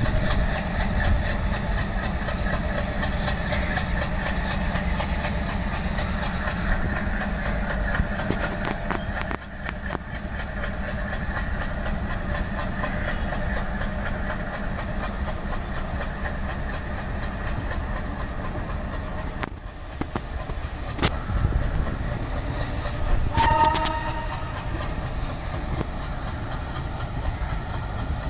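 Passenger coaches rolling past, their wheels clacking rhythmically over the rail joints over a steady rumble. Near the end a locomotive horn sounds once, briefly.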